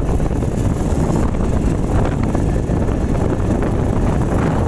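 Loud, steady wind buffeting the microphone on the move, heaviest in the low end, with vehicle rumble underneath.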